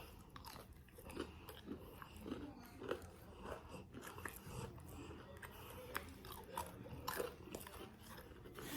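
A person chewing and biting food close to the microphone: irregular wet smacks and small crunches, fairly quiet.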